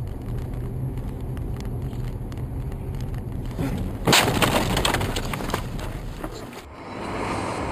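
Car cabin rumble on a snowy road with scattered ticks, then about four seconds in a sudden loud crash as a mass of snow and ice slams onto the windshield, with a dense hiss and rattle of snow that dies away over about a second and a half.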